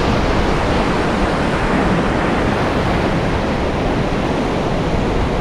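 Ocean surf breaking on the beach: a steady, loud rush of crashing waves.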